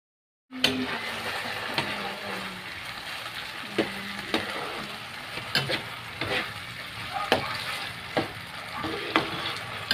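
Corned beef, onion and garlic sizzling in hot oil in a nonstick frying pan, with a spatula scraping and knocking against the pan at irregular moments as the meat is stirred and broken up. The sound cuts in abruptly about half a second in.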